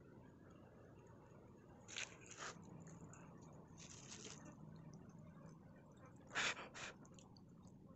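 Chocolate syrup squeezed out over a pancake in a few short squirts, the loudest about six and a half seconds in, over faint steady background noise.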